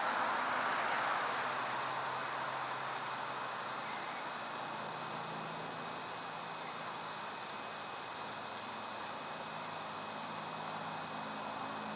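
Distant vehicle noise: a broad rushing sound that slowly fades over the first few seconds, with a faint low engine hum underneath.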